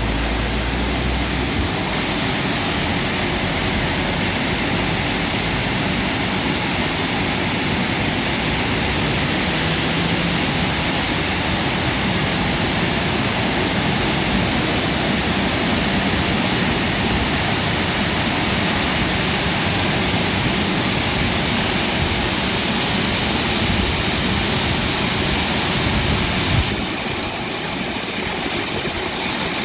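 WashTec SoftCare Pro automatic car wash running, a steady loud rushing over the car. It eases slightly and turns thinner about 27 seconds in.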